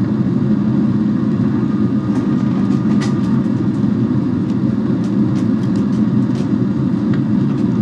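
Steady low drone of a jet airliner's engines and rushing air heard inside the cabin during the climb after takeoff, with a few faint clicks.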